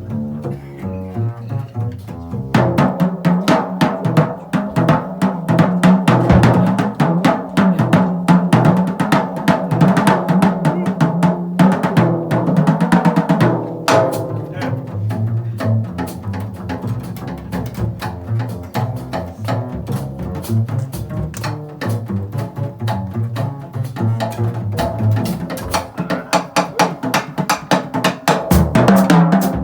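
Live jazz: plucked upright double bass with a drum kit. The bass is nearly alone for the first couple of seconds, then snare, cymbals and bass drum come in thickly over it.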